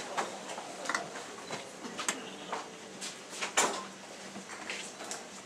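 Hall room noise: scattered knocks, clicks and rustling from people moving in an auditorium, with one louder knock about three and a half seconds in.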